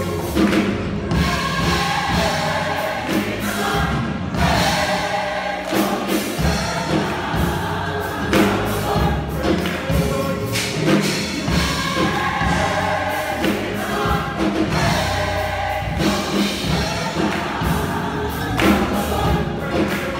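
Gospel choir singing together to a steady beat.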